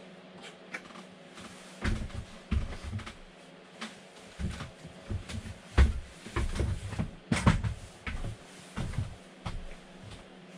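Handling noise: an irregular run of knocks, clicks and thumps as things are picked up, set down and worked with by hand, loudest about six and seven and a half seconds in.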